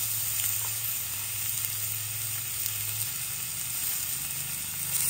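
Slices of raw pork belly sizzling steadily on the hot domed grill of a sindat grill-and-soup pot.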